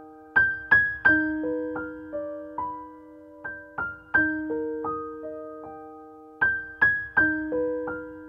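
Soft background piano music: a slow melody of single struck notes, each left to ring and fade, in a short phrase that repeats.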